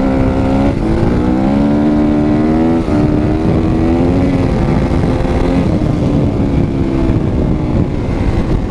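Dirt bike engine pulling up through the gears: the engine note climbs, drops at a shift about a second in and again about three seconds in, then holds a steadier cruise. Heavy wind rumble runs underneath.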